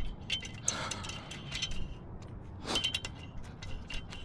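Scattered light metallic clinks and taps of steel lug nuts being handled and threaded onto a bus wheel's studs by hand, some with a short ring.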